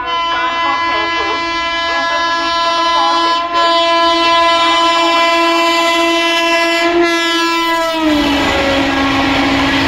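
A WAP-7 electric locomotive's horn sounding one long continuous blast as the Rajdhani Express approaches at speed, dropping in pitch about eight seconds in as the locomotive passes. The rushing clatter of the coaches going by follows.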